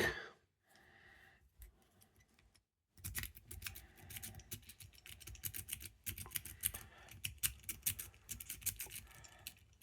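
Near silence for about three seconds, then a dimple rake is worked rapidly in a padlock's dimple keyway: a fast irregular run of small metallic clicks and scrapes as the pins are raked.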